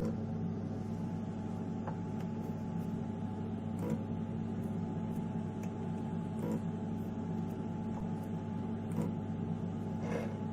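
EMCO Compact 5 lathe running, its spindle turning while the stepper motor jogs the carriage in slowly for a cut. It makes a steady hum with several held tones and a few faint ticks.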